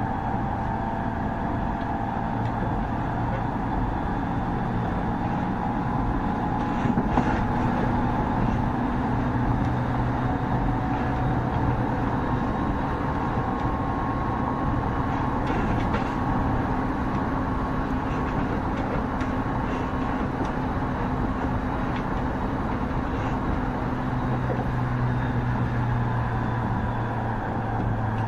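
Electric train running at steady speed on a 209 series 2000-subseries car with a Mitsubishi Electric IGBT VVVF inverter: steady rumble of wheels on rail under a steady whine from the inverter and traction motors. There are a couple of brief clicks from the track, about seven seconds in and again near the middle.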